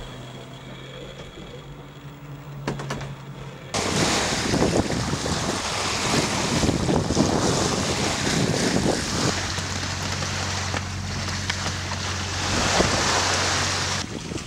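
Wind buffeting the microphone and sea water rushing past the hull of a wooden sailing lugger under way, starting suddenly about four seconds in after a quieter stretch with a low steady hum.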